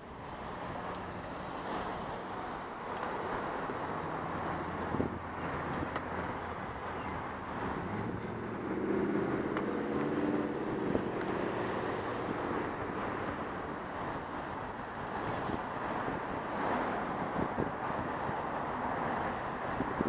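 Traffic noise from passing cars mixed with wind rushing over a microphone carried on a moving bicycle. A pitched hum rises and fades about halfway through.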